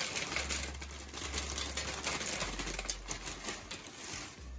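Dry cereal squares pouring into a stainless steel pan and pattering on the metal: a dense run of small, rapid clicks that thins out near the end.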